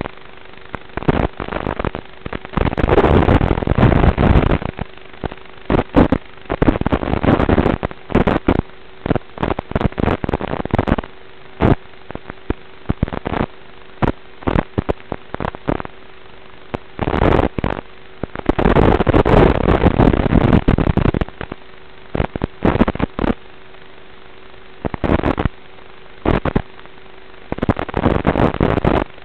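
Crackling static in irregular bursts over a steady hum and hiss, from the audio of an analogue FPV video link.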